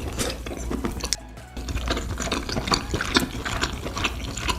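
Close-miked wet chewing and mouth smacking of someone eating, a run of many short clicks and smacks, over background music.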